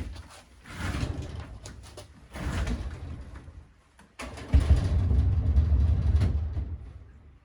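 A washing machine dragged across the floor in several heaves, a low rumbling scrape, the longest and loudest push coming about four seconds in and lasting about two seconds.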